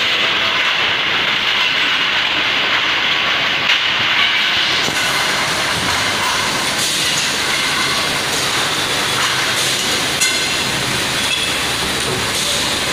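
Automatic multi-nozzle silicone dispensing machine running over T8 LED tubes: a loud, steady mechanical noise that gets brighter and hissier about five seconds in, with two sharp clicks, one near four seconds and one near ten.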